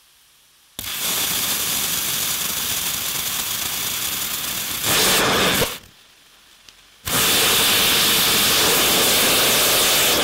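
3D-printed propane–oxygen rocket engine firing with a steady rushing hiss. The hiss starts about a second in and gets louder for its last second before cutting off suddenly near the middle. About a second and a half later the engine fires again and keeps running.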